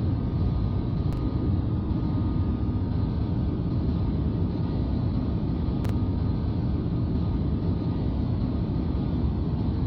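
Aircraft engine noise: a steady, loud low rumble with faint steady whining tones above it.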